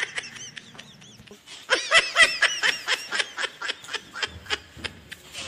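High-pitched laughter in quick repeated bursts, in two runs; the second, louder run begins a little under two seconds in.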